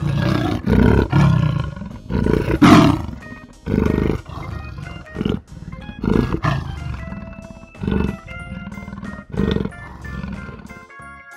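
A leopard roaring: a series of loud calls, about a second or more apart, the loudest about two and a half seconds in, over quiet background music.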